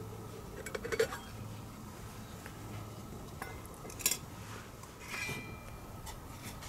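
Metal camping cookware being handled, clinking and clattering: a few knocks about a second in, a sharp clink about four seconds in, and a short scrape with a brief metallic ring just after five seconds.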